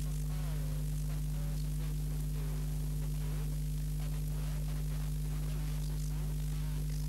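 Steady electrical mains hum with a hiss of static, at an unchanging level.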